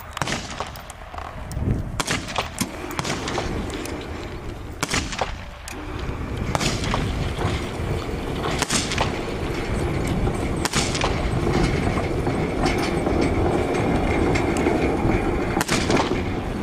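Wheeled target carriage rolling along its rail track: a steady rolling rumble that builds from about six seconds in and holds. Sharp cracks come at scattered moments over it.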